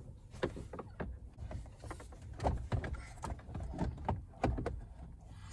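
Plastic clicks, knocks and rubbing as a truck's gauge cluster is handled and eased out of its opening in the dash, a series of irregular short taps throughout.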